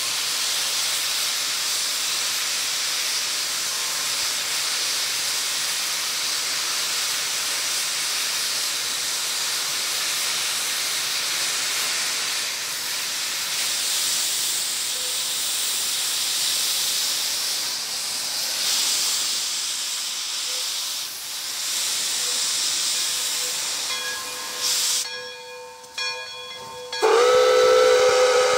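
Pere Marquette 1225, a 2-8-4 Berkshire steam locomotive, with steam hissing steadily from its open cylinder drain cocks. Near the end its steam whistle blows loudly.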